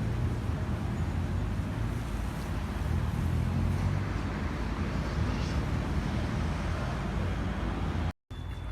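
Steady city street noise: passing traffic with a heavy low rumble, which cuts off abruptly near the end.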